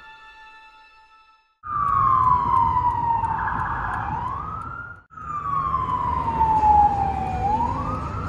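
Police car siren wailing over a low rumble of city traffic. Its tone slides slowly down and then sweeps back up; this is heard twice, with a sudden cut between the two.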